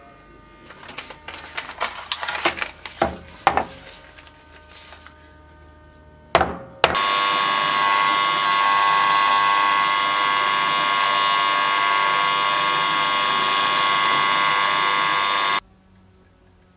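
Knocks and clatter of metal parts being handled, then a drill press drilling into a metal knife guard clamped in a vise: a loud, steady, high whine with many tones that runs for about nine seconds and cuts off suddenly.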